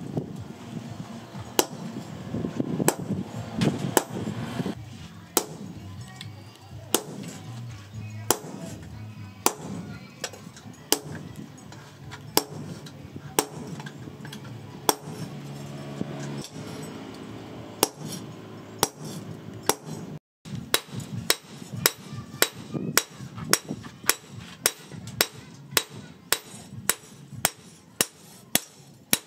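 Hand hammer striking a steel punch held in tongs, driving holes through a hot-forged steel machete blade on a post anvil. The strikes are sharp and ringing, evenly paced at about one every second and a bit, and they speed up to about two a second in the last third.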